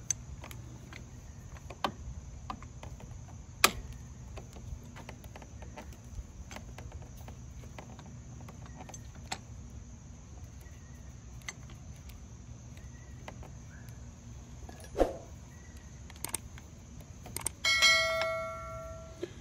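Light clicks and ticks of hands and an Allen key working the plastic switch housing on a motorcycle handlebar, with one sharper click about four seconds in. Near the end, a short ringing bell chime from a subscribe-button animation.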